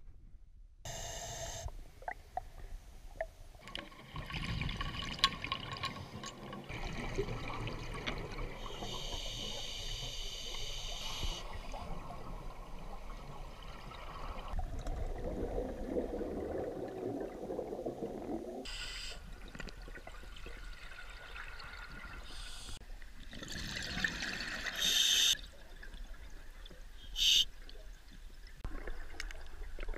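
Underwater sound picked up through a camera housing during a scuba dive: a diver's regulator breathing, with exhaled bubbles rushing and gurgling in several bursts.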